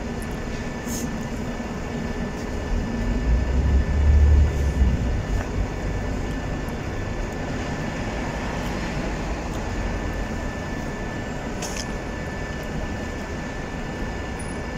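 Steady urban background of passing traffic, with a low rumble that swells and fades about four seconds in.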